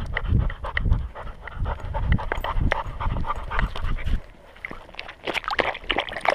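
Welsh Springer Spaniel puppy panting hard right at the collar-mounted microphone, about two breaths a second. About four seconds in the panting stops, and from about five seconds quick wet lapping and splashing begin as he drinks from a rock pool.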